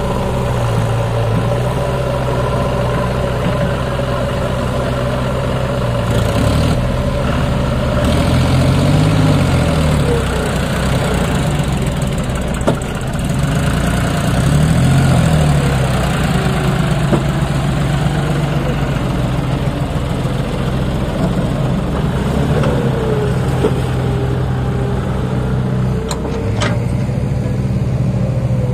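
John Deere tractor's three-cylinder diesel engine running under load while pulling a fully loaded trolley. Its pitch rises and falls twice as it is revved, about nine and fifteen seconds in.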